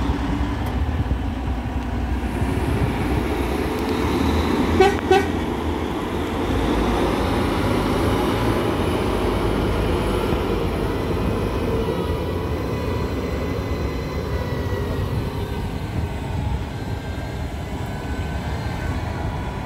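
Volvo A60H articulated dump truck's diesel engine running steadily as the hauler drives slowly past toward the ferry ramp. About five seconds in, a horn gives two short toots in quick succession.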